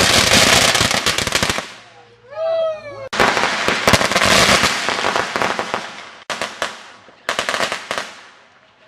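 Strings of firecrackers going off in rapid crackling bursts: one long run, a brief lull with a short high squeal, then another long run and two shorter bursts near the end.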